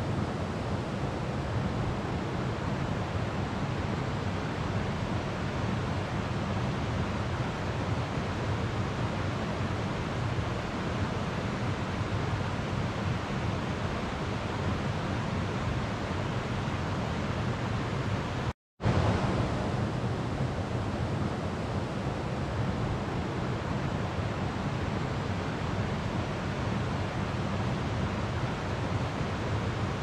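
Slow river water flowing with a steady, even rush. About two-thirds of the way through it cuts out to complete silence for a split second, then resumes unchanged.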